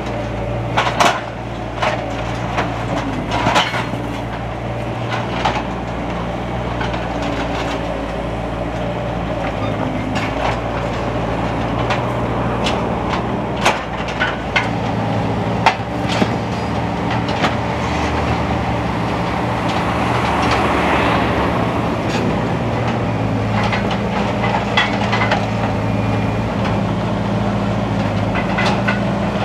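Skid-steer loader's engine running steadily as the machine breaks up and scrapes old asphalt paving, with repeated sharp knocks and cracks of asphalt slabs and debris.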